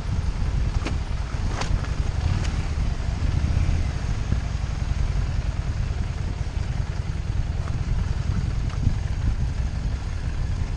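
Harley-Davidson Street 750's V-twin engine running as the motorcycle rides over a rough dirt and gravel track, a steady low rumble with noise above it. Three sharp knocks come in the first two and a half seconds.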